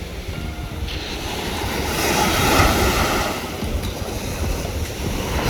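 Ocean surf: waves breaking and washing in, swelling to a peak about two and a half seconds in and again near the end, with wind buffeting the microphone.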